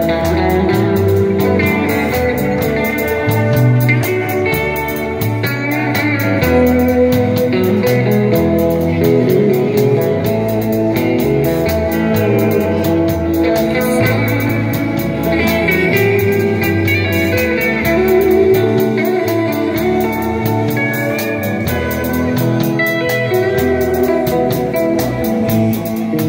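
Live country band playing an instrumental break: an electric guitar carries the melody over a bass line and drums, with no vocals.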